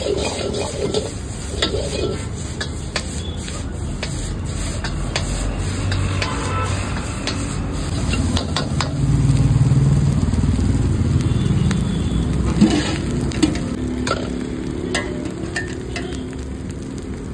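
Fried rice sizzling in a large wok as a steel ladle stirs and scrapes it, with repeated sharp clanks of the ladle against the wok over a steady low rumble.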